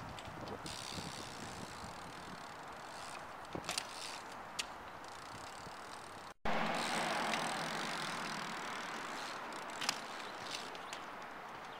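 BMX bike being ridden: steady tyre-rolling and wind noise with a few sharp clicks and knocks. The sound breaks off abruptly about six seconds in and picks up again louder.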